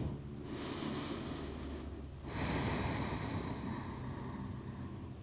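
A person breathing slowly and deeply: an inhale, then a louder, longer exhale starting about two seconds in.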